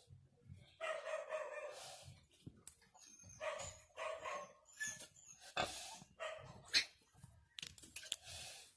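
Newborn piglets squealing in short high calls as they jostle at the sow to nurse, with low grunts underneath.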